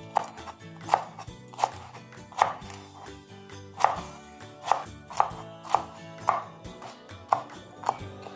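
A knife chopping vegetables on a cutting board: about eleven separate, sharp strokes at an uneven pace of roughly one every half second to a second, over background music.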